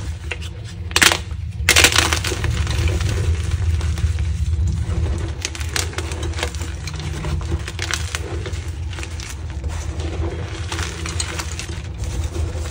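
Plain white gym chalk broken and crushed by hand. Two sharp cracks come about a second in as the block snaps. Then comes a continuous crunching and crumbling as the pieces are squeezed into powder.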